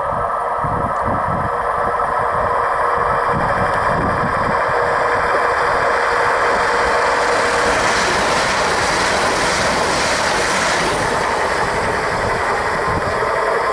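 Siemens Desiro electric multiple unit (OSE class 460) approaching and passing at speed: a steady hum with wheel-on-rail running noise that swells as the train comes close, is loudest about eight to eleven seconds in, then eases as it moves away.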